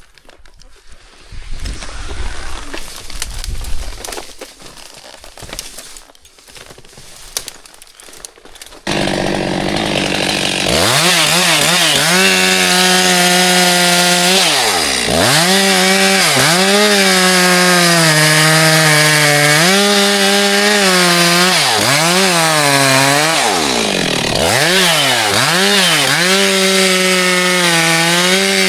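Chainsaw cutting wood, throttled up and down, its revs dropping and climbing again several times. It comes in suddenly about a third of the way in; before that there are quieter scattered knocks and rustling.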